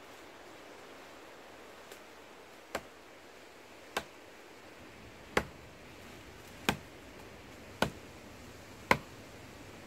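A bladed tool chopping into wood with seven sharp strikes, roughly one a second. The first is faint and the later ones are much louder.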